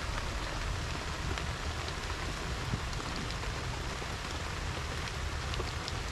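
Steady rain falling: an even hiss with a few scattered drop ticks.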